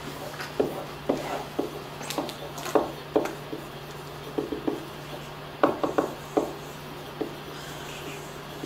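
Dry-erase marker writing on a whiteboard: irregular short squeaks and taps of the pen strokes, over a steady low hum.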